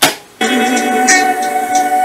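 A loud clunk as an 8-track cartridge is pushed into a Panasonic RA-7600 8-track player, then music starts playing from the tape through the speakers about half a second in.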